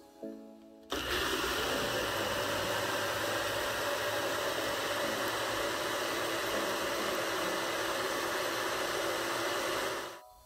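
Personal bullet-style blender motor running steadily, blending frozen banana and soursop juice into a thick smoothie. It starts about a second in and cuts off near the end.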